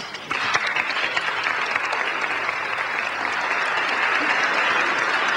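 Concert audience applauding: dense clapping breaks out just after the start and carries on steadily.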